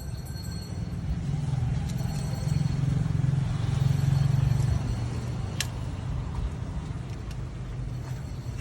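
A motor vehicle engine running with a steady low hum, louder for about three seconds in the middle and then settling back. A single sharp click comes a little past halfway.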